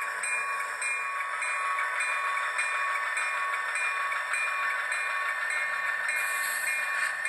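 Sound of a model diesel locomotive, an HO scale SDL39, running steadily, with a short bell-like tone repeating about twice a second.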